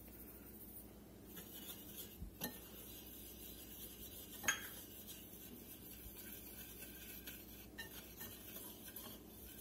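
Wire whisk stirring seasoned flour in a ceramic baking dish: a faint, soft rustle with a few light clinks of metal against the dish, the sharpest about four and a half seconds in.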